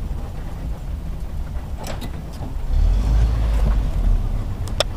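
Land Rover running at low speed, heard from inside the cabin: a steady low rumble that swells louder about three seconds in, with a couple of sharp knocks, one about two seconds in and one near the end.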